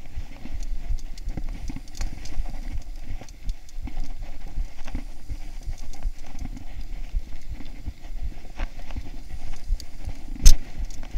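Mountain bike ridden over a rough dirt singletrack: a dense, irregular rattle and knocking of the bike and camera over the bumps, with a low rumble, and one sharp, loud knock near the end.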